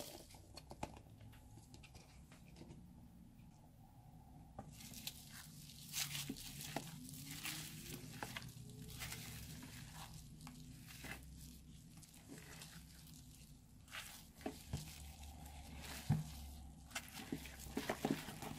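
Foam hearts being tipped from a plastic cup onto slime and worked into it, making faint crinkling and crackling with many small clicks. The sounds pick up about four seconds in.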